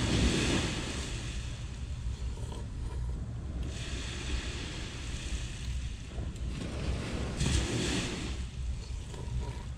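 Sea surf washing up the beach, swelling and fading every few seconds, over a steady low rumble of wind on the microphone.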